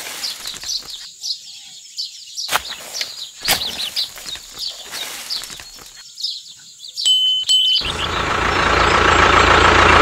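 Birds chirping over small scrapes and rustles of a miniature metal rake dragged through sand and dry black stubble. About eight seconds in, a broad rushing noise swells louder and covers the rest.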